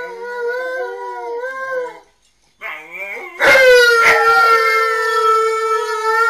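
Siberian husky howling: one long wavering howl that stops about two seconds in, then after a short pause a second howl rises and is held, louder and steady.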